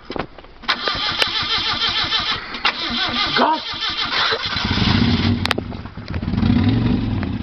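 A vehicle engine being started: a fast clattering crank for a few seconds, then the engine catches about four and a half seconds in and runs with a low, wavering note. A sharp click comes about five and a half seconds in.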